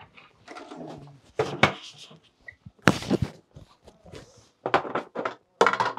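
Rummaging in a wooden cabinet: a run of separate knocks and clatters as hard cases and boxes are pulled out and handled, with the heaviest thunk about halfway through.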